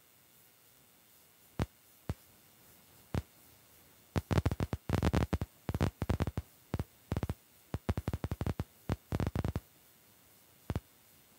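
Heavy rain striking the car as irregular sharp taps and clatters. They are scattered at first, come in a dense flurry through the middle, then thin out again.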